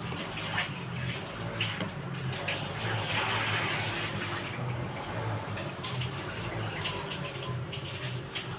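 Water running, with a steady low hum underneath.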